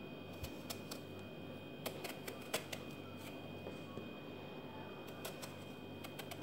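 Kitchen knife peeling strips of skin off an eggplant held in the hand: a scattering of faint, sharp little clicks as the blade cuts through the skin, over a steady faint hum.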